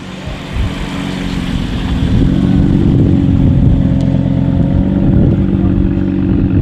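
Audi RS3 8V's turbocharged 2.5-litre five-cylinder engine running, growing louder over the first two seconds and then holding a steady note with no big revs.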